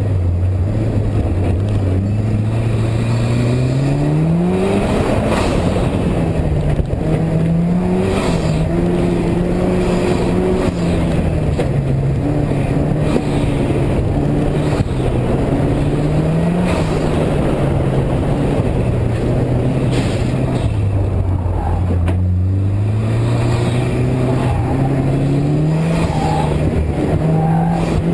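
Mitsubishi Lancer Evolution's turbocharged four-cylinder engine under hard driving, its pitch climbing under acceleration and falling back again several times, over a steady rush of road noise.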